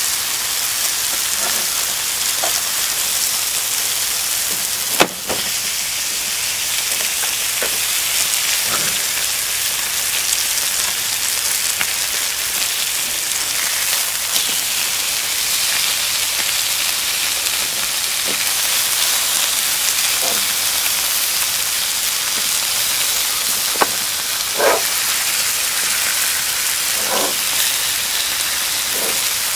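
Dry-aged steaks and onion slices sizzling steadily on a hot griddle pan, with a few sharp clicks of metal tongs against the pan as the meat is turned, the loudest about five seconds in and a cluster near the end.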